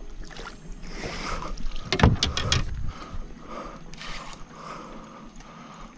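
Water sloshing and splashing against a small boat, with a short cluster of sharp knocks and splashes about two seconds in.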